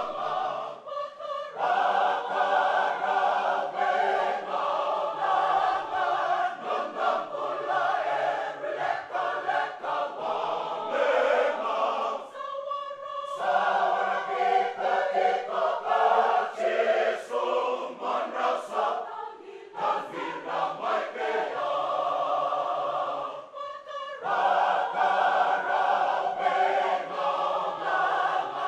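Large mixed choir of men's and women's voices singing a Fijian-language hymn in parts, unaccompanied, with brief pauses between phrases.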